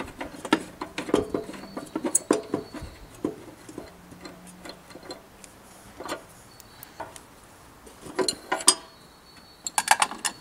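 Small irregular metallic clicks and ticks from a screwdriver and fingers loosening the fuel tank's mounting screws, coming in clusters with short pauses between.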